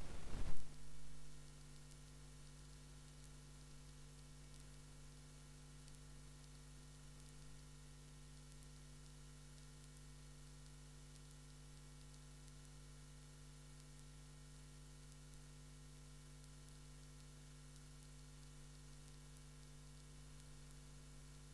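Steady electrical mains hum with a faint hiss. A short burst of crackling noise comes in the first second or so.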